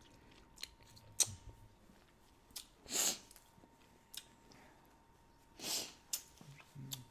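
Faint eating sounds while chewing a shredded brisket taco: scattered small mouth clicks, plus two short breathy hisses about three and six seconds in.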